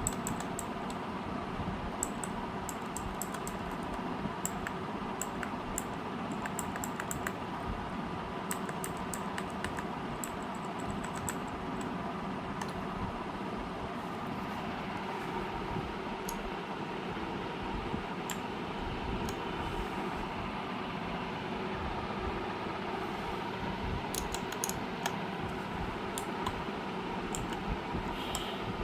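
Typing on an AULA S2022 mechanical keyboard: irregular clusters of sharp key clicks with short pauses between bursts, over a steady background hum.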